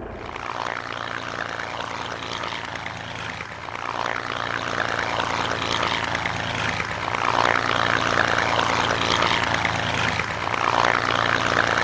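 P-51 Mustang fighter's piston aero engine running, propeller turning, growing louder about four seconds in and swelling again near the end.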